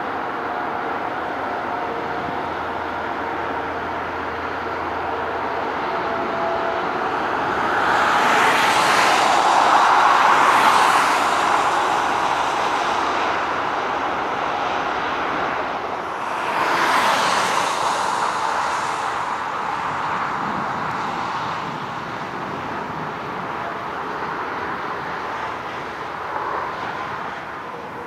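Airbus A319 jet airliner's engines during a landing, a steady rumble that swells loudly twice, about a third of the way in and again just past halfway.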